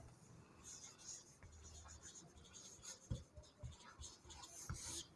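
Marker pen writing on a whiteboard: faint scratchy strokes with a few light taps of the tip.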